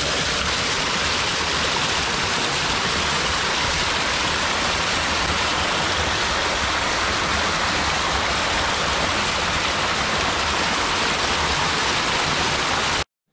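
A small stream cascading over rocks close up, a steady rushing splash of water; it cuts off abruptly near the end.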